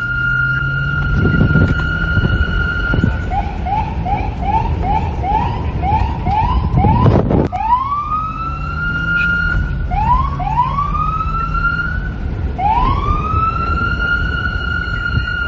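Police car electronic siren: first a held high wail, then about three seconds in a fast yelp of quick rising chirps, two or three a second. Seven seconds in there is a sharp knock, then the siren sweeps back up to the steady high tone several times. A steady low rumble runs underneath.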